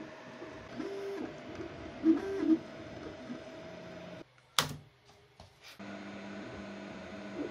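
Mingda Magician X 3D printer printing: its stepper motors whine in short pitched moves over a steady fan hum. A little past halfway a sharp click cuts in and the sound drops out briefly, then a lower steady printing hum carries on.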